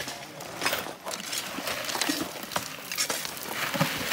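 Gravel and small stones clattering and scraping as they are scooped into and tipped out of plastic buckets, in irregular knocks.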